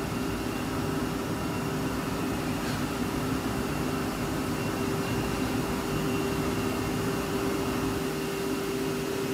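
Steady hum of kitchen ventilation machinery, an even whooshing noise with a constant low tone that does not change.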